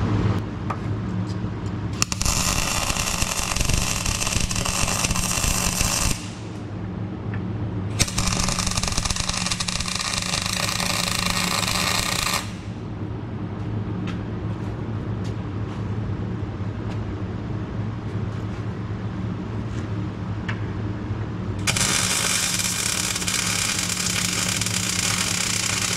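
MIG welder arc crackling in three runs of about four seconds each, starting about two, eight and twenty-two seconds in, tacking 7-gauge steel repair plates onto a Jeep frame. A steady low hum fills the gaps between runs.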